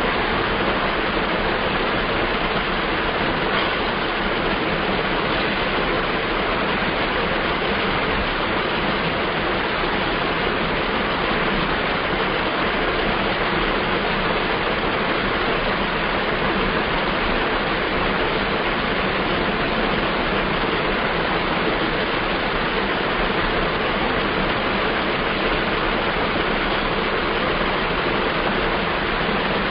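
A steady, even hiss of background noise with a faint low hum beneath it.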